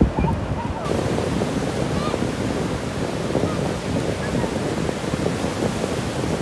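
Surf breaking and washing up on a sandy beach, with wind buffeting the microphone into a low rumble. A short knock right at the start, and the hiss of the wash grows a little under a second in.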